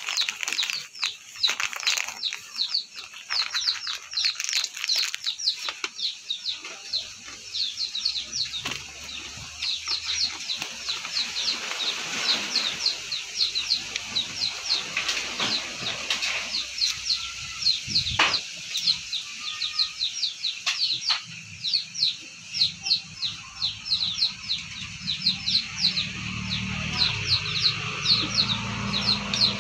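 A hen and a small curly-feathered rooster fighting, with a flurry of wing flapping and scuffling in the first few seconds. A high chirp repeats rapidly, about four times a second, throughout.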